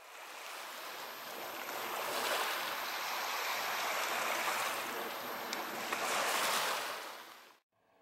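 Small waves washing onto a pebble beach, the wash swelling about two seconds in and again around six seconds, then fading and cutting off abruptly near the end.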